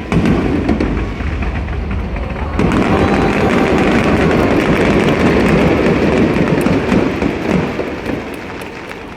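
Aerial fireworks going off in a dense barrage: a continuous run of bangs and crackle that thins out and fades near the end.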